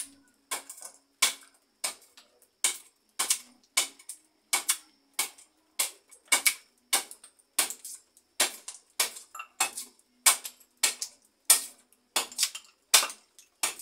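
Machete chopping into a wooden block, hewing its edge flat: a steady run of sharp strikes, about one and a half a second.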